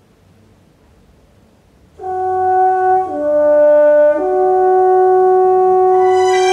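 Recorded music played through a hi-fi system with Rogers LS3/5 bookshelf loudspeakers. Faint hiss, then about two seconds in loud, held chords begin, the chord changing twice.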